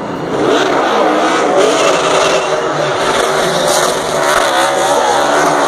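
NASCAR Xfinity Series race car's V8 engine revving up and down, with tyres squealing.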